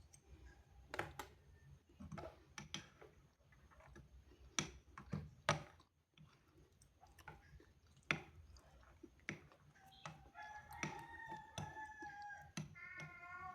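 A rooster crowing about ten seconds in, one long drawn-out call, followed by another higher call near the end. Before it, a scatter of sharp clicks and knocks.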